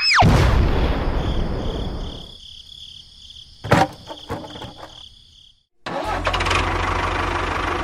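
A small engine running steadily, cutting in suddenly about six seconds in after a moment of silence. Earlier there is a fading rush of noise, a high pulsing tone and a single click.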